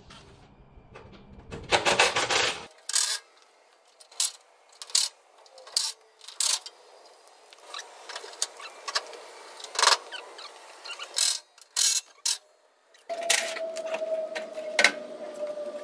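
Rusty steel inner fender sheet metal of an old GMC truck being worked loose by hand: repeated clanks, knocks and rattles of metal on metal, densest about two seconds in. Near the end a cordless drill starts running with a steady whine under the clanking.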